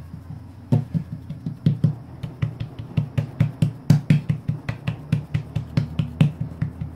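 Fingers and palm patting a ball of shortcrust dough flat against a stone worktop: quick, repeated taps, about three or four a second, each a dull thud with a sharp click.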